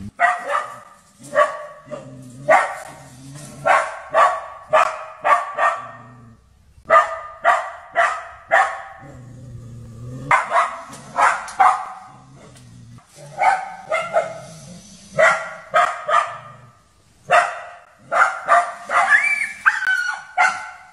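A dog barking repeatedly at a polar bear, in runs of several sharp barks with short pauses between them.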